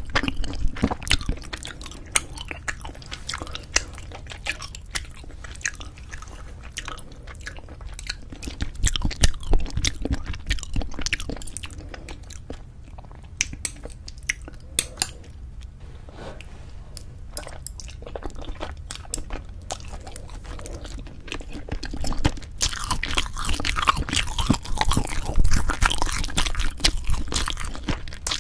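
Close-miked chewing and mouth sounds of someone eating Korean braised spicy chicken with cheese: irregular wet smacks and clicks. The chewing grows louder and busier about three-quarters of the way through.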